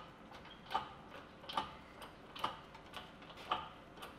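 Hand pump of a 20-ton hydraulic shop press being worked slowly, stroke by stroke: a faint clicking, about five clicks evenly spaced less than a second apart, as the pressure is built up toward 20 tons.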